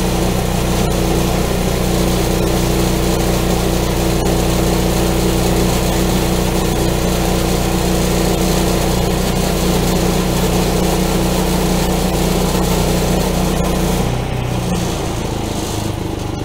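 Portable sawmill's engine running steadily at working speed as the saw goes through a walnut log, with a hiss of cutting over the engine note. About two seconds before the end the sound drops to a lower, quieter engine note.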